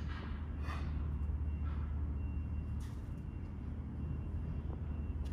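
Marvel Series 8 Mark II band saw running with a steady low hum, with a few light metallic scrapes as parts at its vise and blade guide are handled.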